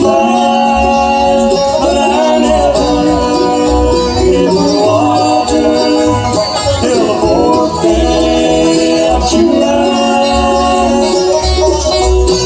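Bluegrass band playing live.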